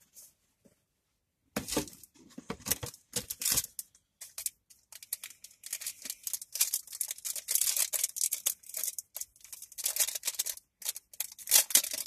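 Packaging rustling and tearing as a small carded pendant is unwrapped by hand, in irregular bursts that start about a second and a half in.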